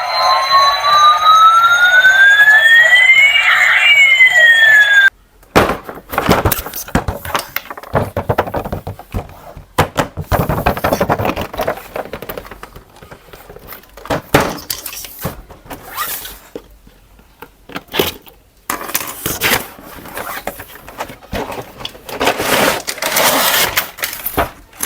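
A toy's electronic siren-like sound effect: two tones glide against each other, one rising and one falling, and cut off suddenly about five seconds in. Irregular clattering and rattling with clicks follows.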